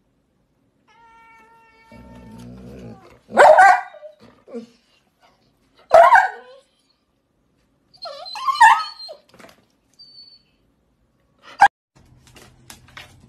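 A dog and a cat squabbling, with three loud, sharp animal cries about two and a half seconds apart.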